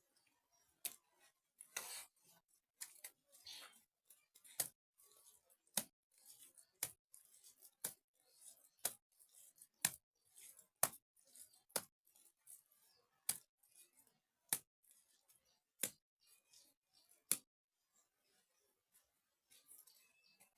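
Faint, sharp slaps about once a second from handfuls of wet mud being pressed onto a cracked mud wall during hand plastering, with softer scrapes and rustles between them.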